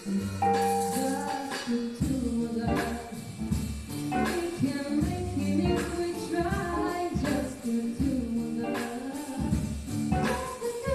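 Background music with singing over a steady rhythmic accompaniment with tambourine-like percussion.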